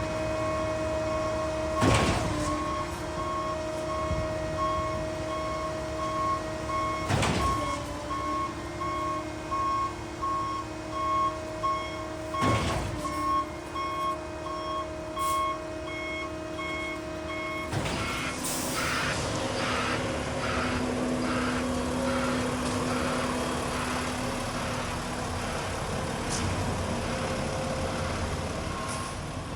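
Concrete mixer truck backing up: its reversing alarm beeps about once a second over the steady running of the diesel engine, broken by four short sharp bursts about five seconds apart. The beeping stops about two-thirds of the way through, and the truck runs on with a faster pulsing sound.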